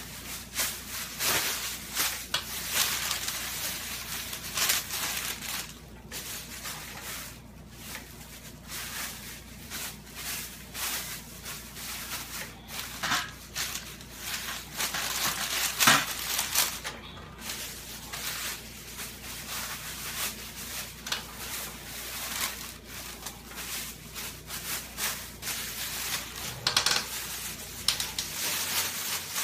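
Thin HDPE plastic grocery bags crinkling and rustling as they are crumpled and pressed together by hand, in an irregular run of crackles that swell and fade.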